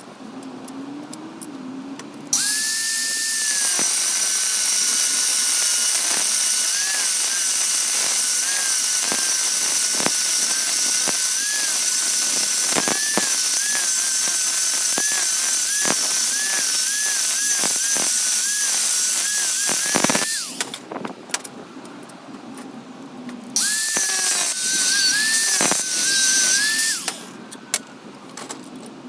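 A DIY belt grinder driven by an angle grinder, running with a high whine and a hiss of the belt. It switches on about two seconds in, runs about eighteen seconds with its pitch dipping again and again, stops, then runs again briefly near the end.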